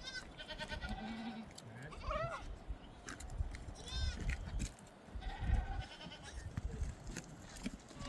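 Sheep bleating: a few short, scattered bleats, the clearest about two seconds in and about four seconds in, over a low rumble.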